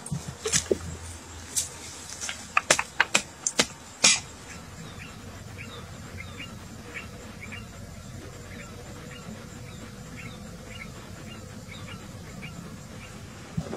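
A quick run of sharp snaps and clicks for the first four seconds, the last one the loudest. After that, a steady outdoor background of buzzing insects with about two short high chirps a second.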